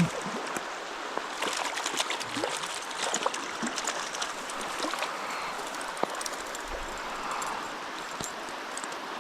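Trout stream water running steadily, with a brief patter of small sharp splashes and clicks starting about a second and a half in and lasting a couple of seconds.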